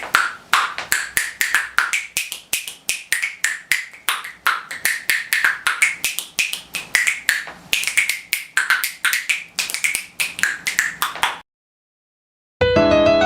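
Rapid sharp percussion taps in a rhythmic pattern, about five a second, stopping about eleven seconds in. After a short silence, piano notes start near the end.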